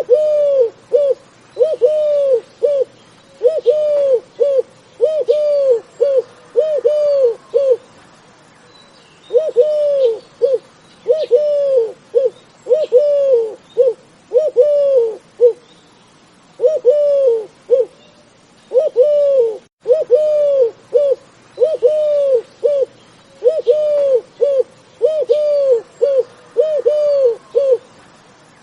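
A dove cooing: rounded, arching coos repeated in phrases of three to five notes with short pauses between them, with a longer pause about a third of the way in. Other small birds chirp faintly in the background.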